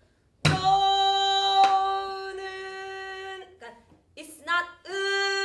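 A woman singing in Namdo minyo folk-song style, holding one long steady note and then starting a second phrase that rises and holds near the end, the voice produced from 'inside' as the teacher demands. A buk barrel drum is struck as the first note begins and again about a second later.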